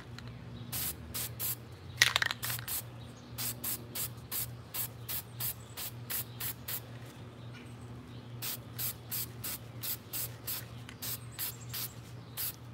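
Aerosol spray-paint can spraying in short hissing bursts, about three a second, with a brief pause about seven seconds in before the bursts resume.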